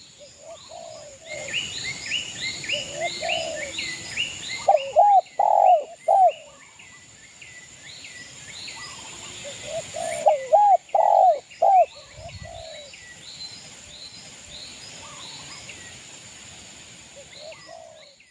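Spotted dove (derkuku) cooing in short repeated phrases, the loudest about five and eleven seconds in. Behind it, another small bird chirps rapidly and steadily at about three calls a second.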